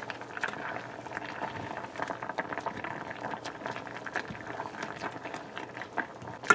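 Pot of tamarinds in water boiling, bubbling steadily with many small pops. A sharp knock near the end.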